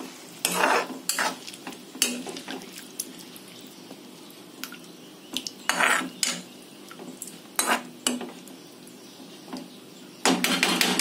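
A steel spatula stirring prawn masala in a black kadhai, scraping and knocking against the pan in scattered strokes, with a dense run of clattering near the end.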